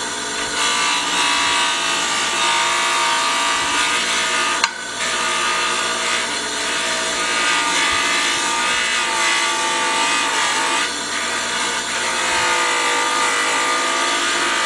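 Deburring (blending) wheel running on a bench motor while a square mild-steel bar is pressed against it to polish a homemade Pullmax bead die. The result is a steady, loud grinding hiss with a whine that wavers in pitch as the steel is worked against the wheel.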